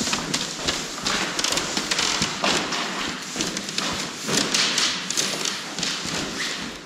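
Footsteps and irregular taps and thuds on a wooden floor, over a steady rustling hiss.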